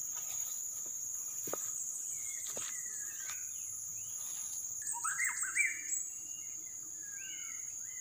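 White-rumped shama (murai batu) singing in short, clear whistled phrases that slide up and down, coming thickest from about five seconds in. Insects keep up a steady high drone underneath.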